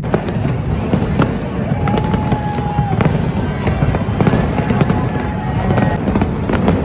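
New Year's fireworks going off continuously: a steady low rumble packed with many sharp crackles and pops.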